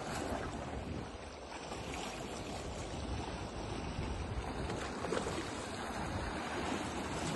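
Wind on the microphone over the sea washing against the rocks: a steady rushing noise with no distinct events.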